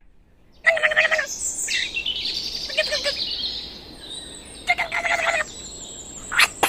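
Bird calls: two bursts of rapid repeated notes, about a second in and again near five seconds, with gliding whistled notes between them and more short calls near the end.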